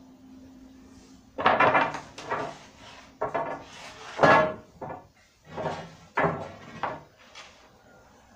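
Heavy battle ropes whipped up and down and slapping the floor in an uneven string of loud slaps, starting about a second and a half in, with a faint steady hum before them.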